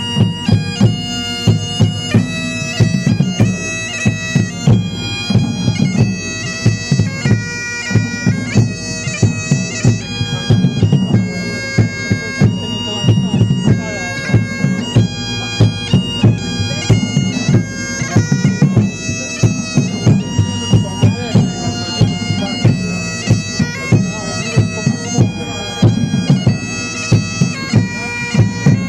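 Pipe band playing: bagpipes carry a stepping melody over their steady drone, with drums beating a regular rhythm underneath.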